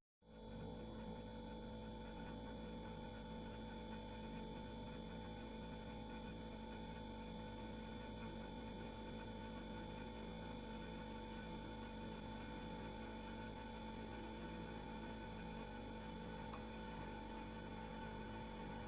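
Household refrigerator running: a steady hum with faint hiss. It briefly cuts out at the very start, then comes straight back.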